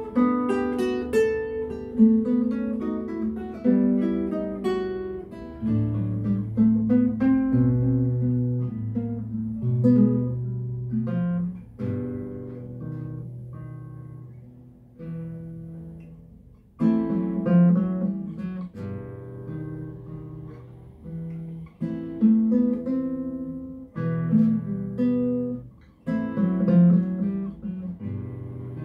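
Two classical guitars playing a duet: a plucked melody over deep bass notes. The music fades briefly a little past the middle, then comes back in louder.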